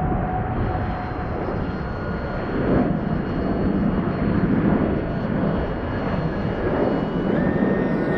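Strong wind buffeting the microphone, with the thin, high, steady whine of an E-flite UMX Pitts S-1S ultra-micro electric RC biplane's motor and propeller in flight. The whine jumps up in pitch near the end.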